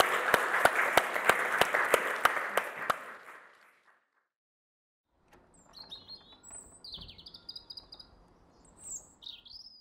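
Audience applauding, fading out over about three seconds. After a short silence, birds chirp several times.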